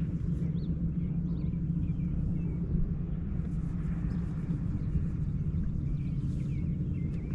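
Bass boat's electric trolling motor running with a steady low hum, while faint birds chirp now and then.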